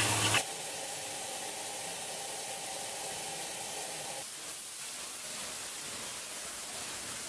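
Steady hiss of water spraying from an electric-vehicle underbody fire nozzle, a flat nozzle set on the floor under the car and fed by a hose.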